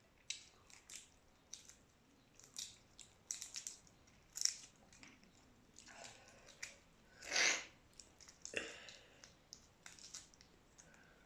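Close-up eating sounds of boiled shrimp and rice: chewing and mouth smacks with irregular sharp clicks, and one longer, louder sound about seven seconds in.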